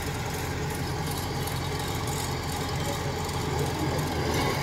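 Diesel engines of Kubota crawler rice combine harvesters running steadily at low revs, a low even hum that grows slightly louder near the end.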